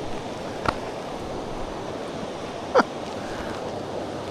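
Steady rush of a mountain trout stream flowing over rocks. A short sharp sound comes less than a second in, and a brief sound falling in pitch, the loudest moment, comes near three seconds in.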